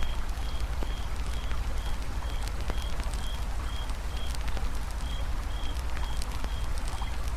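Campfire crackling with scattered sharp pops over the steady low rush of a flowing river. A high chirp repeats about twice a second throughout.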